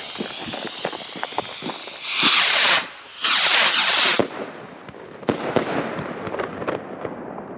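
Gaoo Hammer Rocket fireworks: fuses crackling, then two loud rushing hisses as the rockets launch, followed about a second later by two sharp bangs half a second apart as they burst overhead. The bangs are rather weak for bang rockets, in the uploader's judgement.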